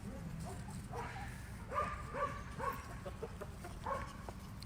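Chickens clucking: a string of short, clipped clucks, several in quick succession in places.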